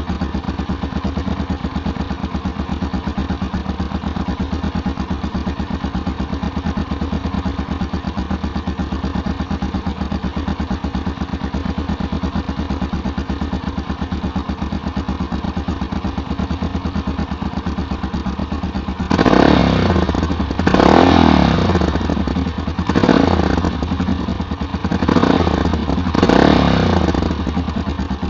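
Yamaha Tricker XG250's single-cylinder four-stroke engine idling steadily through a K2-tec aftermarket muffler, then blipped five times in quick revs starting about nineteen seconds in.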